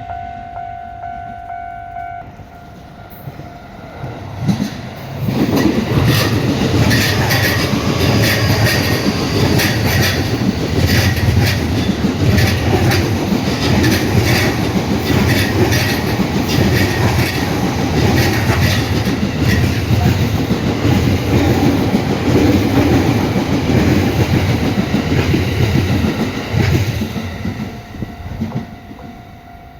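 Train passing over a level crossing: a long, loud run of wheels clattering over the rail joints, starting about five seconds in and fading a few seconds before the end. The crossing's warning bell rings as a steady tone at the start and is heard again near the end.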